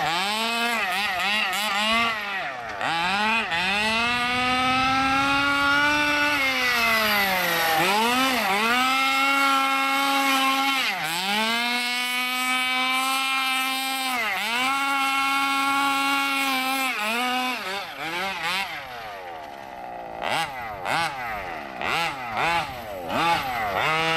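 Stroked 30cc Zenoah two-stroke engine of an MCD X4 Rally 1/5-scale RC car, revving up and down several times and holding high revs for a few seconds at a stretch. Near the end it drops to a lower, quieter running speed with short throttle blips.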